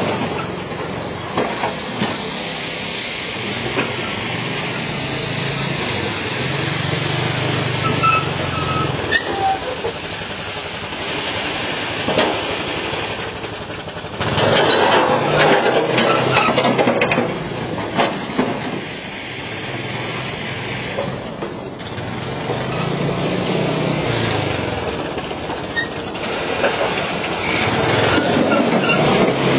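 Honda Foreman ATV's single-cylinder four-stroke engine running under load while it pulls a rear snow plow, the engine rising and falling, with louder stretches about halfway through and near the end.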